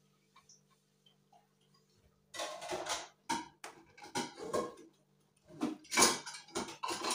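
Dishes being washed in a sink: plates and metal pots knocking and clattering together amid the scrubbing. A run of clinks and knocks starts about two seconds in, and the loudest comes near the end.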